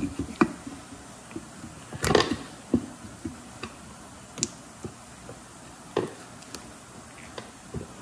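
A new brake pad being worked into a Mazda 6 front caliper bracket's metal slide clips: scattered light metallic clicks and taps, with a short rattle about two seconds in and a sharper click about six seconds in.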